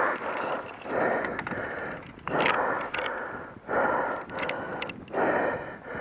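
A mountain biker breathing hard while climbing, loud breaths in and out in a steady rhythm close to the microphone.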